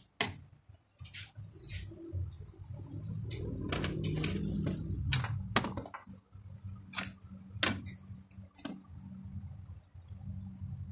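Irregular light clicks and taps of small metal parts being handled and fitted on a car alternator's rear end, rectifier and brush holder, with a handling rustle in the middle, over a low steady hum.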